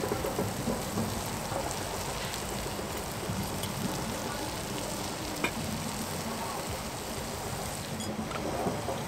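Sliced onions frying in a Trangia Mini pan, a steady sizzle, with a single sharp tap about halfway through.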